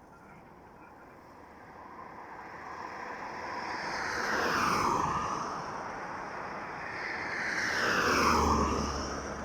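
Two vehicles pass one after the other, each growing louder and then falling in pitch as it goes by: the first about five seconds in, the second, slightly louder, near the end.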